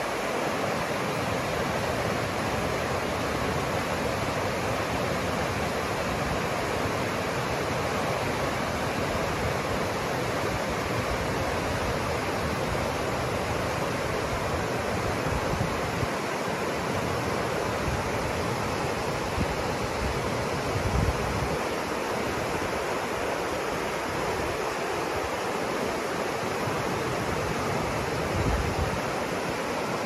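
Rapids of a fast river rushing over rocks: a steady, dense rush of white water.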